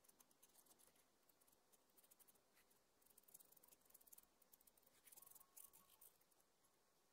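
Sanguine pencil scratching on paper in quick, faint hatching strokes, busiest about three seconds in and again about five seconds in.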